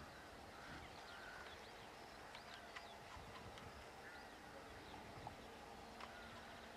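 Quiet outdoor ambience of birds chirping and calling, over a faint, steady low drone from a distant Class 55 Deltic diesel locomotive.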